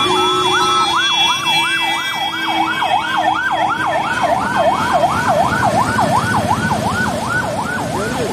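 Emergency-vehicle sirens in yelp mode, a fast rising-and-falling wail about three times a second, with two sirens overlapping at first. Vehicle engines and road noise sit underneath.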